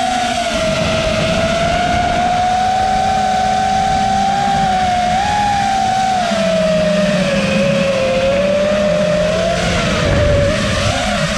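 A 5-inch FPV quadcopter's motors and propellers whining steadily, the pitch drifting up and down as the throttle changes, with a low rush of wind noise underneath.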